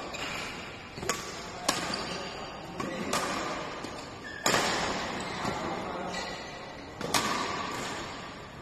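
Badminton rackets hitting a shuttlecock in a fast defensive rally: sharp cracks at irregular intervals, some a fraction of a second apart, each ringing on in the reverberation of a large indoor hall.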